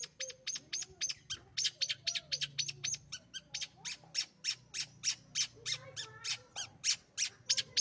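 Long-tailed shrike (cendet) singing a fast run of short, harsh notes, about five a second.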